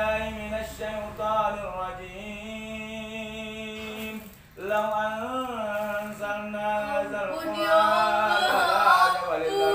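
A man's voice chanting Quranic verses in a drawn-out, melodic ruqyah recitation. Long held notes bend slowly in pitch, with one short break about halfway through.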